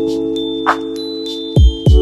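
Background music: sustained chime-like chords with a beat, two heavy low drum hits near the end.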